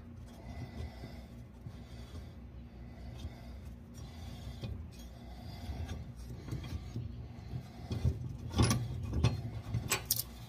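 Blade bolt on a Dixie Chopper mower deck spindle being spun out by hand: faint metal rubbing and small clicks, then a few louder metal knocks near the end.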